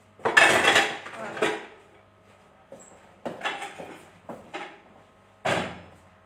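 A cooking pot clattering as it is lifted off a gas hob and handled. There is a long clatter near the start, a few shorter knocks in the middle, and one more clatter near the end.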